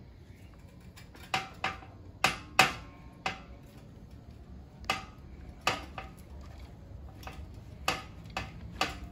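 Sharp metal clinks and taps, about ten of them at irregular intervals, as the metal parts of a motorcycle's front fork and triple clamp knock together while being fitted.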